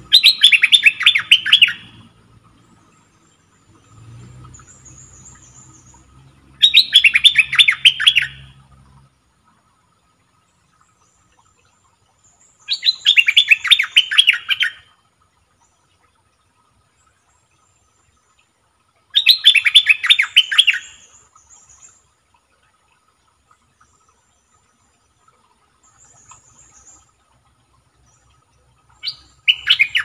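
Caged decoy bulbul singing loud bursts of rapid, bubbling notes, each about two seconds long, five times at roughly six-second intervals. A fainter, higher call from another bird comes between the bursts.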